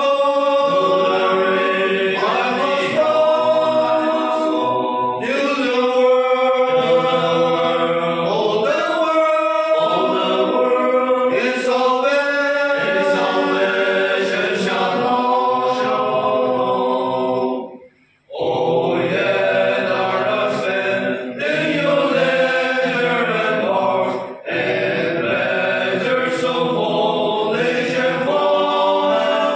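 A group of men singing a hymn together from song sheets, with one brief break partway through.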